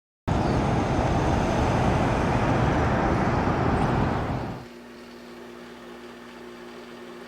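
Loud, steady rushing noise like road traffic for about four seconds, fading out quickly, then a quiet, steady low hum.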